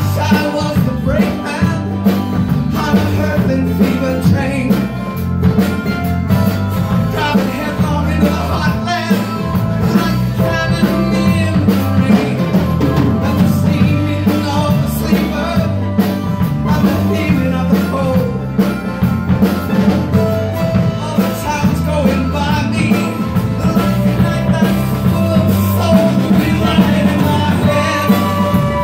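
Live rock band playing amplified through a bar's PA: strummed acoustic guitar, electric guitar, electric bass and drum kit keeping a steady beat, with a lead vocal and harmonica at times.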